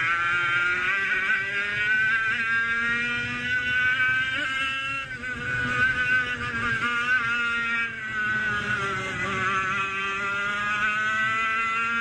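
100cc racing kart's two-stroke engine at racing revs, pitch climbing through the first few seconds, dropping off about 5 s in and again around 8–9 s as it comes off the throttle, then climbing again each time.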